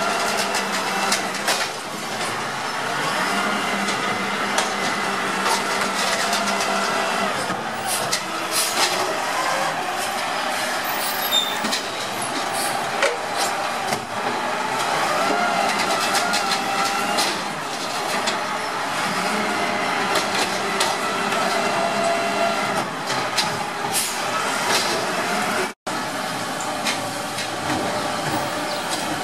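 Automated side-loader garbage truck working a collection: the diesel engine runs steadily under a wavering hydraulic whine as the arm lifts and dumps carts, with scattered clanks and bangs of carts against the hopper.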